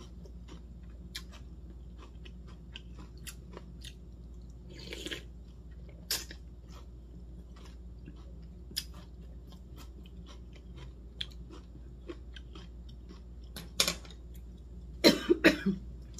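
Close-up chewing of cucumber and seaweed cold soup (oi-miyeok naengguk), with small scattered crunches and clicks of crisp cucumber. Near the end come a few much louder coughs as a bit of hot Cheongyang chili catches in the throat.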